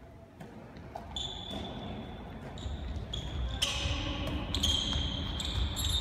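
Handball thudding on the court floor among players' sneakers squeaking, several short high squeaks and sharp thuds, busier and louder from about halfway through.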